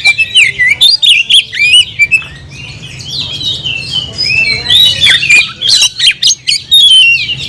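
Oriental magpie-robin (kacer) in full, vigorous song: a fast run of varied whistled notes mixed with harsh chattering calls. It eases off about two seconds in, then picks up again loudly. This is the challenging song of a male calling out a rival.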